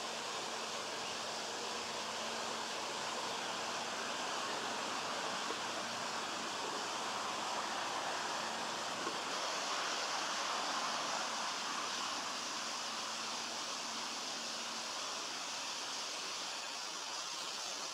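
Steady rushing background noise, with a faint low hum that fades out near the end.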